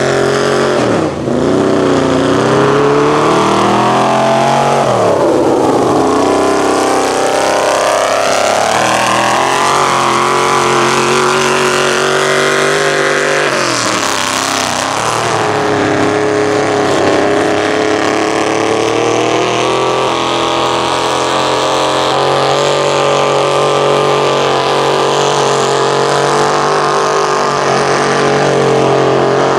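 Big lifted mud truck engines revving hard as they plough through a mud pit. The pitch drops and climbs back up sharply about a second in, again around five seconds, and again around thirteen seconds, then holds high and steady.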